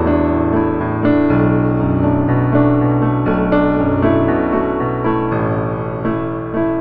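Soft, slow solo piano background music, a new note or chord struck about every second.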